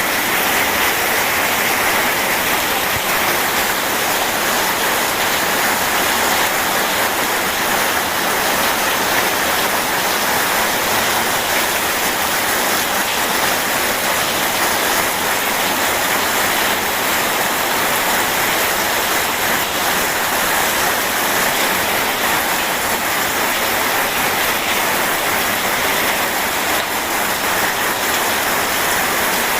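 Steady rain mixed with rushing river water: a dense, even hiss that holds level throughout.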